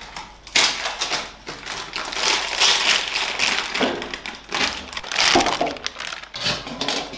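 Clear plastic bag crinkling and rustling as it is handled and emptied of sausages, with dense crackles and a few light taps.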